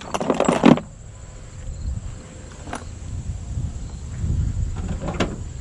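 Loose metal sockets and wrenches clinking and rattling together in a plastic toolbox tray as a hand sorts through them. The clatter is loudest in the first second and is followed by a few lighter clicks and handling noise.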